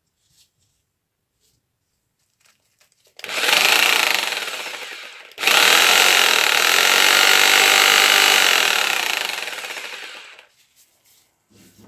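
Bosch PST 50PE jigsaw's electric motor and reciprocating blade running on a test after restoration. It is switched on about three seconds in and runs for about two seconds, stops for a moment, then runs again for about five seconds before winding down.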